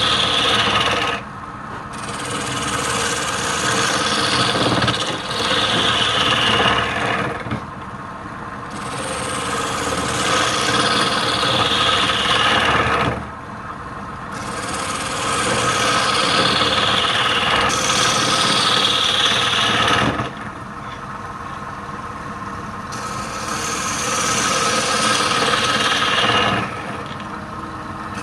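A turning tool cutting into wood spinning on a lathe, with the lathe running steadily underneath. The cutting comes in about five long scraping passes, each lasting a few seconds with a short quieter gap between, and the pitch falls during each pass.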